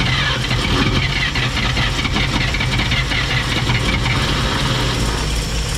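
A 1954 Chevrolet 3100's inline-six engine, rebuilt and then left sitting for 17 years, has caught after cranking and is running steadily and loudly on its first start.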